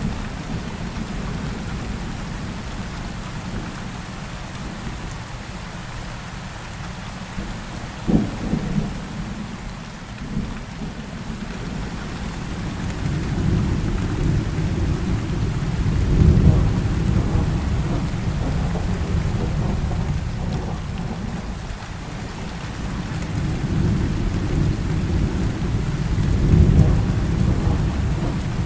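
Heavy rain falling steadily, with thunder: a short sharp crack about eight seconds in, then long low rumbles that swell and fade in the middle and again near the end.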